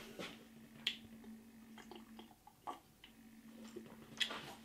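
Faint sounds of eating from a bowl of ramen: a few small, scattered clicks from mouth and bowl, over a steady low hum.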